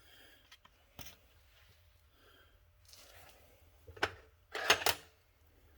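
A wrench working on the torch's brass fittings: a few light metal clicks, then a short, louder rattle about three quarters of the way through, as a leaking acetylene connection is snugged up.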